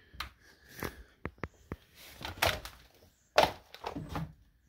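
A string of irregular thuds and knocks, with three quick sharp clicks a little over a second in and the loudest thud about three and a half seconds in.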